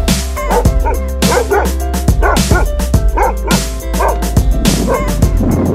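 Background music with a steady beat, with a dog barking repeatedly over it.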